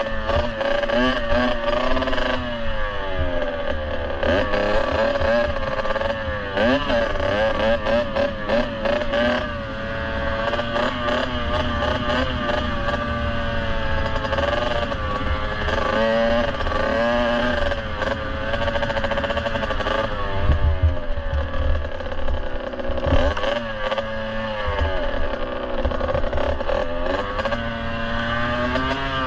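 Kawasaki KX65's two-stroke single-cylinder engine running under riding load, its pitch repeatedly climbing and dropping as the throttle is opened and rolled off. Wind buffets the microphone throughout.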